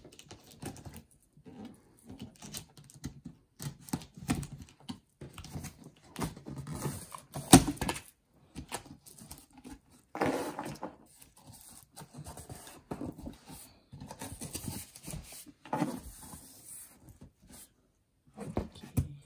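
A cardboard box being cut open and unpacked: scissors scraping through packing tape, and cardboard flaps and packing rustling, scraping and knocking in irregular bursts. The loudest is a sharp knock about seven and a half seconds in.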